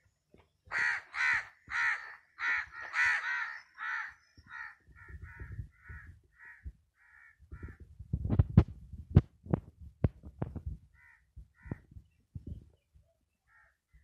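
Crows cawing: a fast run of loud caws, about two a second, in the first four seconds, then fainter, more widely spaced caws. From about eight seconds in, a cluster of low thumps and knocks, the loudest sounds here.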